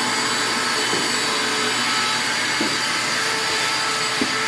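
Shop vac motor running steadily with a constant whine, sucking out a freezer.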